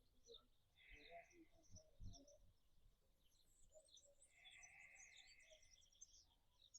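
Near silence with faint birds chirping in the background: many small scattered chirps and two longer, buzzier calls.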